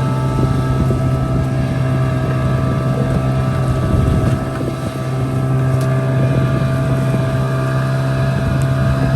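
Outboard motor of a wooden fishing canoe running steadily under way, with wind noise on the microphone.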